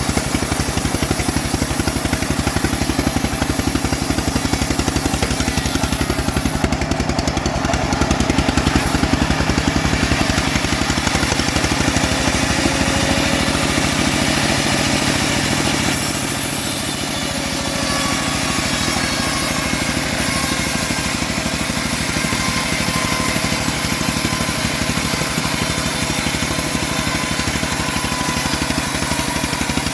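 Home-built bandsaw mill running steadily under its engine, sawing old teak, with a fast regular engine pulse; the level dips briefly about halfway through.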